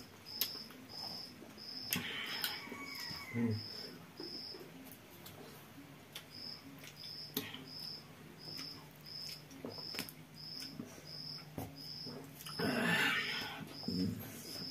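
A cricket chirping in a steady rhythm, about two short high chirps a second, with a brief pause around five seconds in. Under it are soft clicks from eating by hand off steel plates, and a louder noisy burst about thirteen seconds in.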